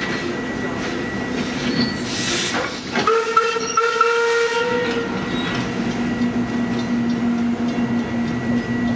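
Commonwealth Railways steam locomotive running past with its train; about three seconds in its whistle is blown once, a steady pitched blast lasting about two seconds. After that a steady low drone carries on under the train noise.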